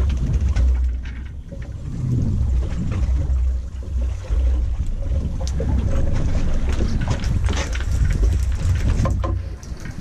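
Fishing boat at sea: a steady low rumble with wind buffeting the microphone and water washing against the hull.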